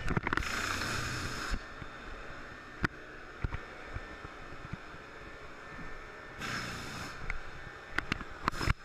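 Knocks, clicks and scrapes of hands and gear being handled around a Formula One car's cockpit, close to the onboard camera, with the engine switched off. There are two short bursts of rushing noise, one just after the start and one about six seconds in.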